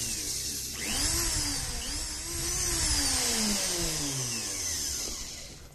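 Parkside PBSD 900 A1 belt sander's electric motor running unloaded as a function check, with the drive belt off and the carbon brushes just refitted. It speeds up again about a second in, then slows with a falling whine and stops near the end.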